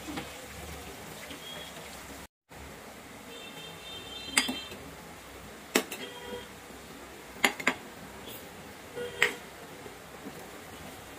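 Food frying in oil in a pan with a steady sizzle, while a utensil knocks and clinks against the pan about five times.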